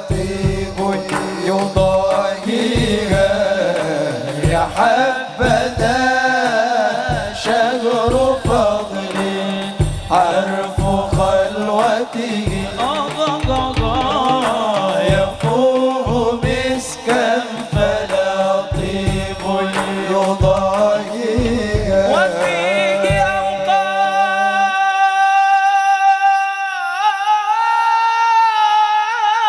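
Live sholawat music: a steady drum beat about once a second under a wavering, ornamented melody. About 24 s in the drums stop, leaving a long held melody line that bends in pitch.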